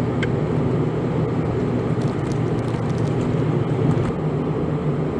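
Toyota Voxy van heard from inside the cabin on the move: a steady engine drone over road noise from the tyres.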